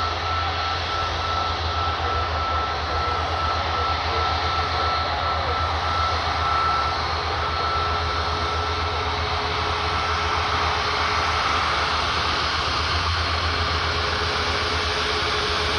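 Jet engines of a Boeing 737 MAX 8 (CFM LEAP-1B) running while the airliner taxis: a steady loud rush with a low rumble and a high whine that fades after about ten seconds.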